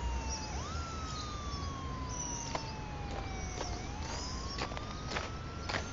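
Siren wailing, its pitch sweeping quickly up and then sinking slowly, twice, before climbing slowly again near the end, over a steady low rumble.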